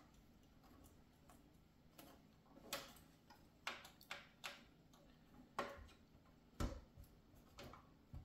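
A hand screwdriver tightening small screws into a plastic model-ship hull section: about a dozen sharp, irregular clicks and taps of the driver and plastic parts being handled.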